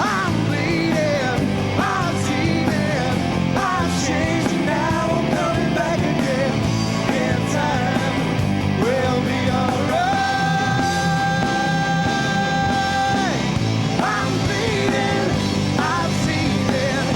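Rock band playing live, with electric guitars, bass, drums and a lead vocal. A long note is held for about three seconds in the middle.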